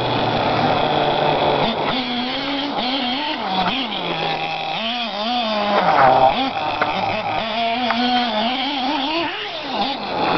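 Hot Bodies nitro RC truck's small glow engine revving up and down as it is driven, its pitch rising and falling again and again. It is highest and loudest about six seconds in.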